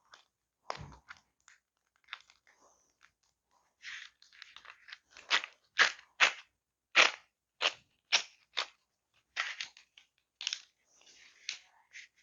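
Split corrugated plastic wire loom crackling and crunching as traction motor leads are pushed into it, in irregular sharp crackles that come thickest from about four seconds in.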